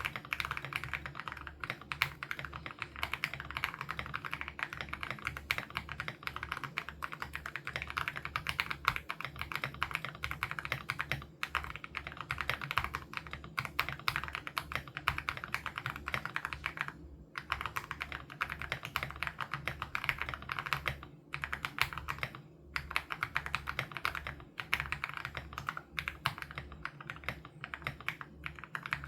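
Steady, fast typing on an Aula F87 Pro mechanical keyboard with HMX Sarcophagus switches: a dense run of key presses with a couple of short pauses in the second half.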